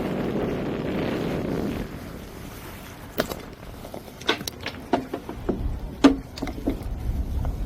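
Wind rushing on the microphone aboard a fishing boat, dying away after about two seconds. It is followed by an irregular scatter of sharp knocks and clicks, with a low rumble rising near the end.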